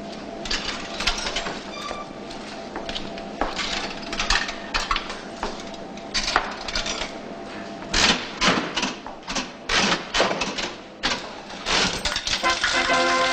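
Coins clattering out of a slot machine into its metal tray in an irregular run of metallic clinks, thickest about two-thirds of the way through. Music comes in near the end.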